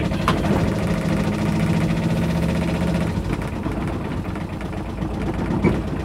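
Small Kubota diesel engine of an Aixam Mega Multitruck van running under light throttle as the van creeps forward. Its note is stronger for the first few seconds, then it settles back to a steady idle about three seconds in.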